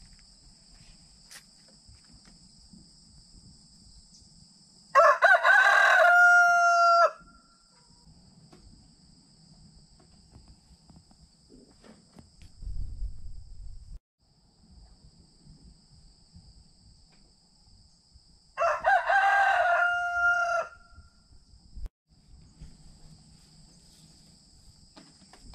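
A rooster crowing twice, well apart, each crow a loud cock-a-doodle-doo about two seconds long.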